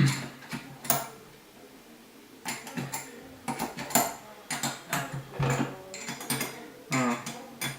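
Metal clinking and clanking as turbocharger housing parts and a wrench are handled during disassembly: a couple of sharp knocks at the start, a short lull, then a run of irregular clicks and clanks, some ringing briefly.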